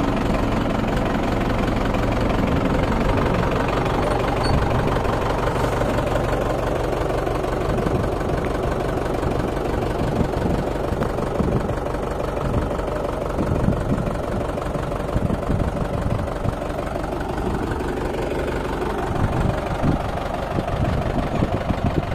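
Mahindra 575 DI tractor's four-cylinder diesel engine running, steady at first and then rougher and more uneven in the second half as the tractor moves off under the load of towing a bus. A brief rise and fall in engine pitch comes a few seconds before the end.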